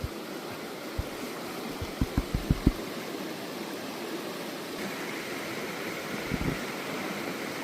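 River water flowing steadily, with a short run of soft, low thumps about two to three seconds in.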